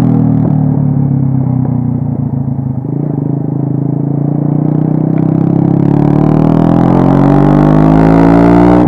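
Modenas Kriss underbone motorcycle's small single-cylinder engine under way, holding low, steady revs for the first few seconds, then climbing steadily in pitch and getting louder through the second half as the bike accelerates.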